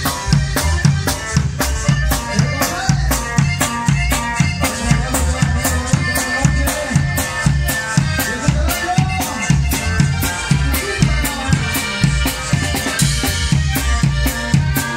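Live band music with a drum kit keeping a steady, driving beat.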